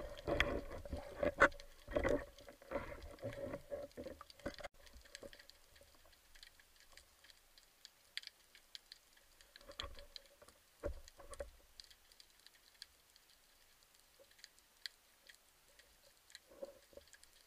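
Underwater sound picked up through the camera housing: knocks and rubbing as the speared fish is handled on the spear shaft in the first few seconds, then sparse scattered clicks and crackles.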